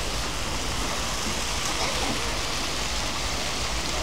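Steady hiss of splashing water from a swimming pool's water jets, with no single splash standing out.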